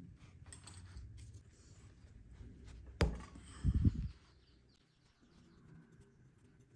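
Small metal parts of a rusty coil tattoo machine handled while it is taken apart: a sharp metallic click about three seconds in, followed by a couple of dull knocks, with faint small clicks of handling before and after.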